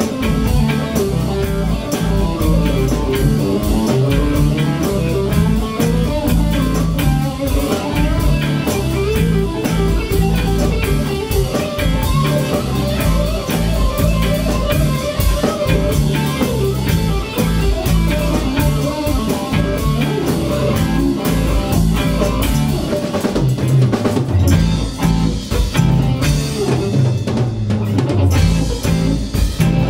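Live band playing: electric guitars over a drum kit keeping a steady beat.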